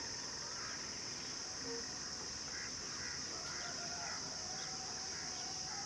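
Steady high-pitched drone of insects, with a few faint short chirps over it.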